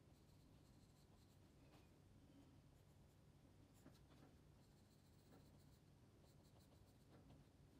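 Faint scratching of a pencil on paper as it sketches in short, broken strokes.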